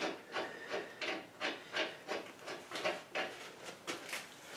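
A quick series of short scraping, rubbing strokes, about three a second, from hand work at a bolt on a cast-iron bracket on the lathe bed.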